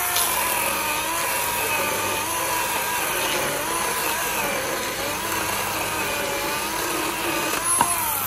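Ryobi 18-volt 10-inch cordless chainsaw with a brushed motor cutting through a log. The motor whine dips and recovers in pitch as the chain bites. A short knock comes near the end.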